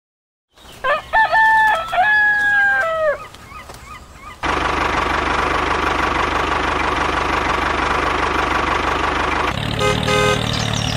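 A rooster crows once, a single drawn-out cock-a-doodle-doo about a second in. From about four seconds in, the DIY mini tractor's small motor runs steadily with a thin whine.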